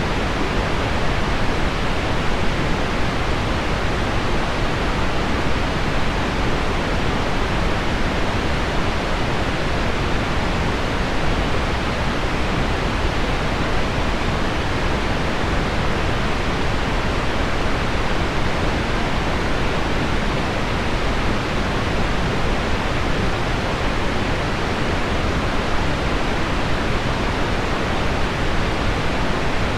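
Steady, unchanging pink noise blended with heavy rain on window glass, a dense even hiss weighted toward the low end.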